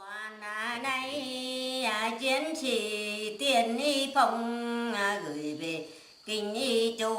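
A woman singing a Mường folk song in the Mường language, solo and unaccompanied, in long drawn-out notes that waver and slide. She breaks off briefly for breath about six seconds in.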